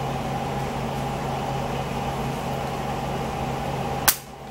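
Steady mechanical room hum, like an air conditioner or fan running, with a single sharp click about four seconds in, after which the hum drops away briefly.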